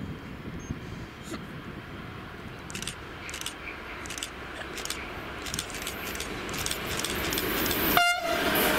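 A class 185 electric locomotive hauling a container freight train approaches, its running on the rails growing steadily louder as it nears. About eight seconds in, the locomotive gives a short horn toot as it passes.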